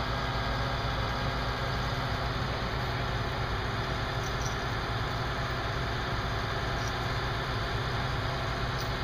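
Heavy-equipment diesel engine idling steadily.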